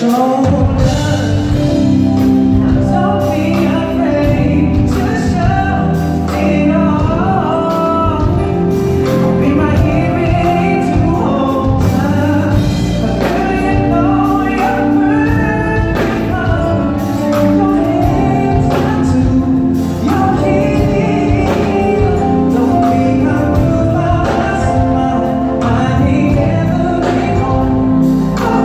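Live band playing a slow R&B ballad, with a male lead vocalist singing over drums, bass, keyboards and guitars and backing voices, heard from the audience in a large hall.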